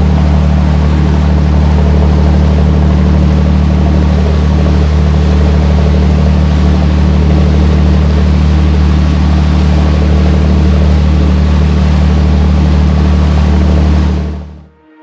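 Boat engine running steadily under way, a loud constant low drone over the rush of the wake and passing water. It fades out about a second before the end.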